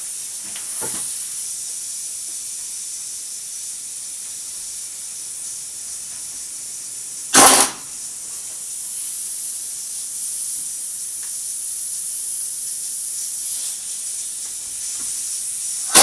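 Impact wrench driving a nut onto an electric motor's shaft to hold a sprocket, in two short loud bursts, one about halfway and one at the very end. A steady hiss runs underneath.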